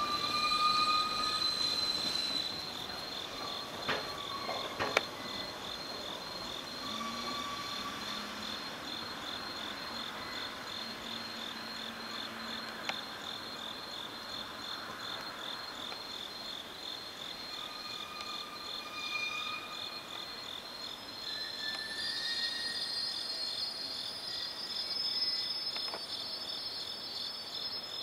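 Container freight train creeping through a yard, its wheels squealing loudly at first and then in short squeals on and off, with a couple of sharp knocks about four and five seconds in. Crickets chirp steadily in the background.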